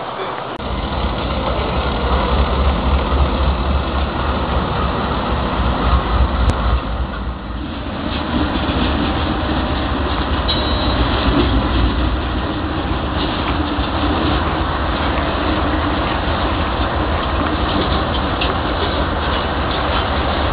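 Several CSX diesel locomotives running on the track, a heavy low engine rumble under steady rolling noise, starting about half a second in.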